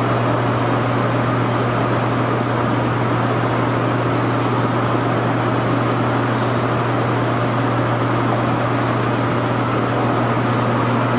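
Stanko engine lathe running under power feed, the carriage and power compound traversing after a change of feed direction: a steady mechanical hum with a strong low drone.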